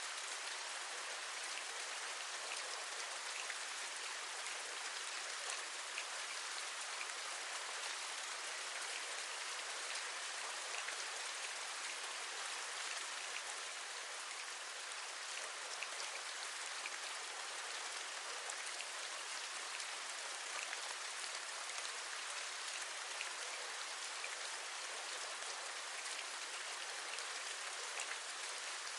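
Steady rain, a dense even hiss flecked with many small drop taps.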